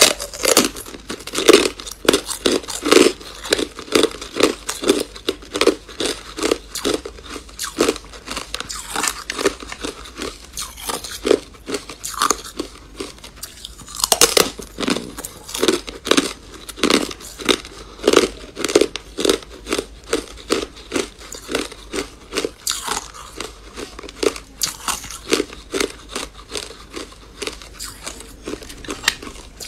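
Close-up crunching and chewing of thin discs of hard clear ice, bite after bite, with sharp crunches about two a second.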